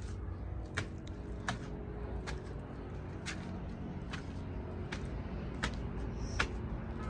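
Footsteps climbing stairs: sharp clicks at a walking pace of about one step every 0.8 seconds, over a steady low rumble.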